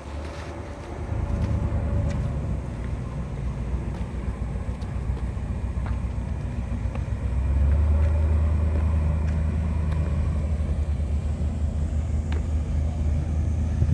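Steady low engine rumble from an approaching car ferry, growing louder about halfway through.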